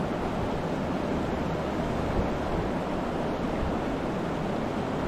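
Steady rushing of the Crowsnest River's flowing water, an even noise at one level with no distinct events.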